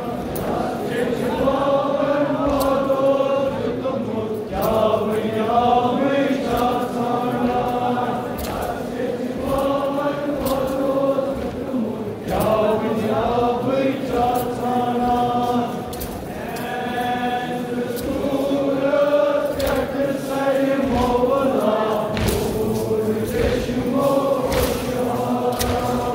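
A crowd of men chanting a Kashmiri nouha together, a mourning elegy sung in repeated phrases of a few seconds with short breaks between them. Scattered sharp knocks sound through the singing.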